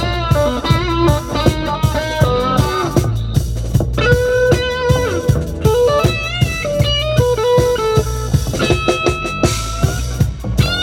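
Live band playing an instrumental jam: a guitar lead with bent, wavering notes over bass and drums.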